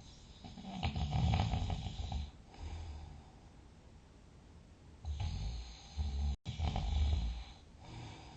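A sleeping person snoring loudly: two long snores about four seconds apart, each followed by a softer breath. The second snore drops out for a split second in the middle.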